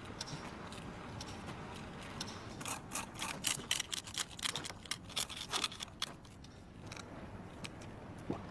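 A pin poking and scraping at a disc of dalgona honeycomb toffee on a plate, giving quick, sharp little clicks and scratches. They come thickest from about two and a half to six seconds in, over a faint steady hiss.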